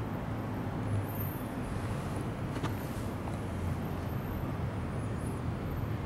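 Outdoor street ambience: a steady low rumble of distant traffic, with one faint click about two and a half seconds in.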